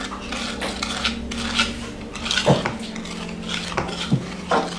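Wire whisks and wooden spoons clattering, tapping and scraping against plastic mixing bowls as creamed butter, sugar and egg are cleaned off the spoons and whisked, with a few sharper knocks. A steady low hum runs underneath.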